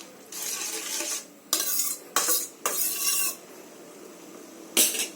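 A spoon stirring tamarind gravy in a kadai, scraping the pan in four strokes, then one sharp knock near the end.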